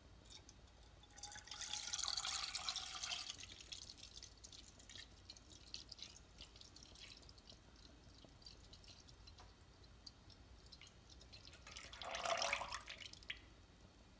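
Milk pouring in a thin stream into a pan, splashing and bubbling in the milk already there. The splashing is louder for about two seconds starting a second in and again briefly near the end, with faint drips and pops between.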